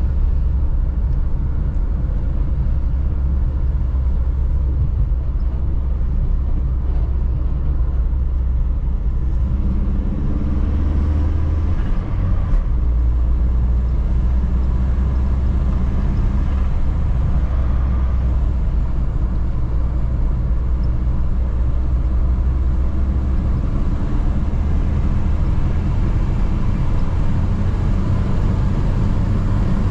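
Audi A3 1.8T four-cylinder turbo engine (AGU, with cone filter and K03 turbo) pulling the car along at a steady pace, a deep drone with road rumble. A brief break in the sound about twelve seconds in, like a gear change, after which it settles back to a steady drone.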